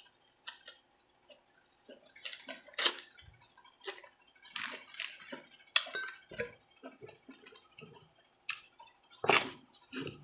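A person eating close to the microphone: irregular wet mouth clicks and smacks with short crunchy chewing bursts, the loudest about three seconds in and just after nine seconds.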